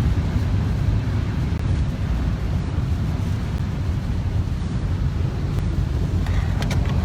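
Car driving through typhoon wind and rain: a steady low road rumble with an even rushing hiss over it.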